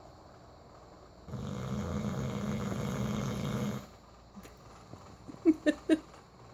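Bulldog snoring: one long snore lasting about two and a half seconds, then three quick, loud noises near the end, louder than the snore.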